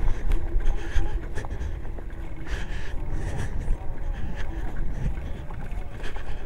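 Freego DK200 electric bike riding over rough, muddy dirt: wind rushing on the microphone and a steady rumble from the tyres, with the bike knocking and rattling over bumps a few times.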